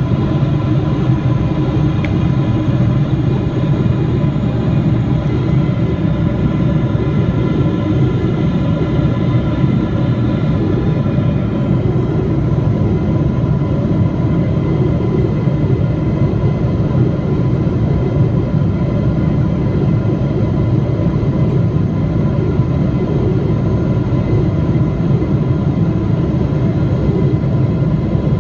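Cabin noise of a Boeing 777-300 heard from beside the wing: a steady low rumble of airflow and its Rolls-Royce Trent 800 engines, with a thin steady whine over it. The higher tones of the whine fade about eleven seconds in, while the rumble holds on.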